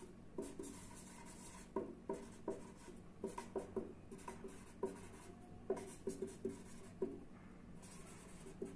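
Marker pen writing on paper: a run of short, irregular scratching strokes as letters are formed.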